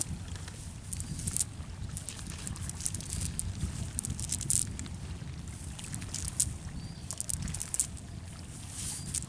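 River water splashing and sloshing, with many scattered sharp splashes over a low steady rumble. Short high chirps come a few times.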